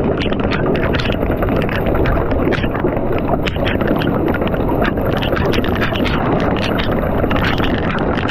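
Severe thunderstorm wind of 70+ mph buffeting the microphone in a steady loud rush, with hailstones striking the ground and the camera as many sharp ticks.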